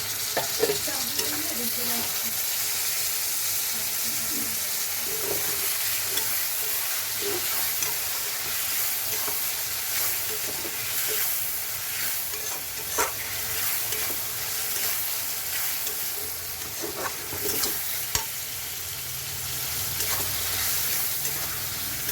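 Chopped tomatoes frying with onion and garlic in hot oil in a pan: a steady sizzle, with a spatula stirring and scraping in occasional short clicks.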